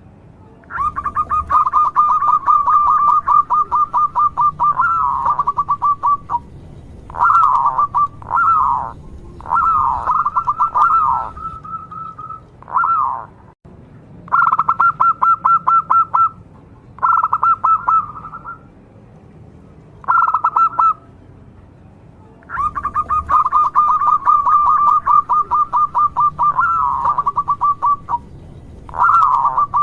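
Zebra dove (local perkutut) singing: phrases of rapid stuttering notes alternate with single drawn-out coos, repeated with short pauses throughout. It is the gacor (full, persistent) song used as a lure to get other perkututs to answer.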